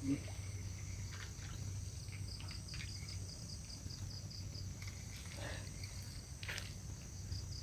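Insect chorus of crickets chirring steadily, with a high trill that pulses about five times a second over a low steady hum, and a few brief faint noises in the second half.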